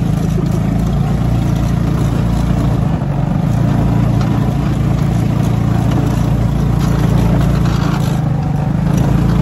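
Off-road buggy's engine running steadily while driving, a low drone heard from the seat, with the quad bikes ahead adding to it. It gets a little louder about three and a half seconds in.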